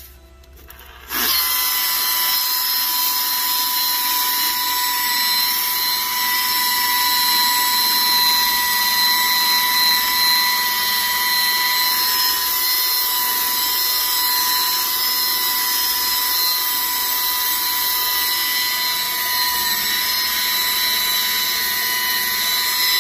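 Corded rotary polisher buffing a steel A-arm. It starts about a second in and then runs at constant speed with a steady whine.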